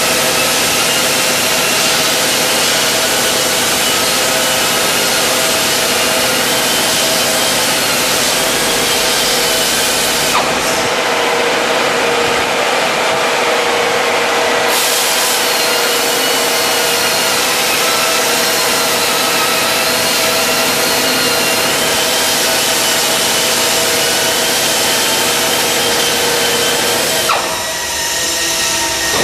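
GISON GPW-7 pneumatic polisher running steadily at speed: a loud rush of air with a slightly wavering whine over it. Near the end it dips briefly in level.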